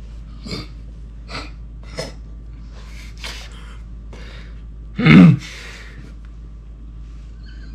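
A young man's short, sharp breaths and gasps as he reacts with disgust to a bite of gooey deep-fried banana. About five seconds in comes one loud, brief vocal outburst.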